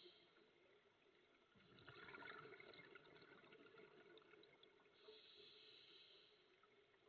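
Faint underwater breathing of a scuba diver heard through the camera housing: a regulator inhale hiss, a gurgling burst of exhaled bubbles about two seconds in, then another inhale hiss near the end.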